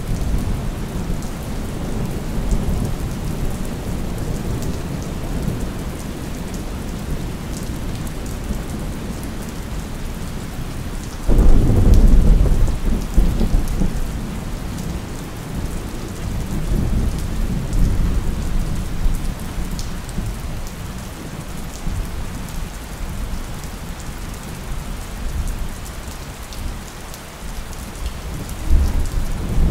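Steady rain falling under rolling thunder. A sharp thunderclap hits about eleven seconds in, the loudest moment, and rumbles away over several seconds. Softer rumbles follow later, with another swell near the end.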